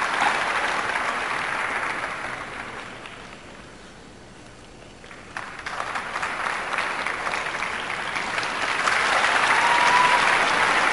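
Audience applauding. The applause dies down a few seconds in, swells again about five seconds in, builds to its loudest near the end, then cuts off suddenly.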